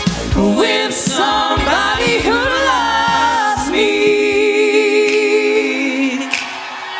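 A woman and two men singing live through microphones in harmony over amplified backing music. A little past halfway the bass and beat drop out, and the voices hold one long note together that fades near the end.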